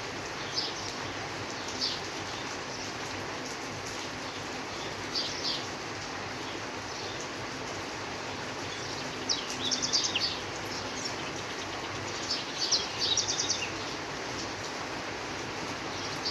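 Steady rain hiss with birds chirping over it: a few single chirps early and two bursts of rapid chirping, about two-thirds of the way in and again near the end.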